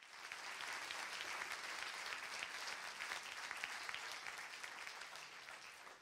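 Audience applauding, the clapping thinning out and fading near the end.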